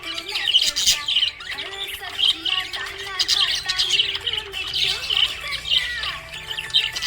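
Budgerigar chirping and chattering: a continuous run of quick, high chirps and squawks.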